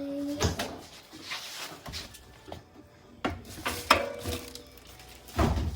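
Scattered knocks and thumps of a washing machine being shifted and handled, with the loudest thump near the end.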